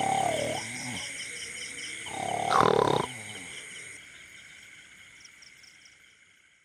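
Night insects such as crickets chirping in steady, pulsing high trills, with two louder drawn-out animal calls falling in pitch, one at the start and a louder one about two and a half seconds in. The sound fades out to silence near the end.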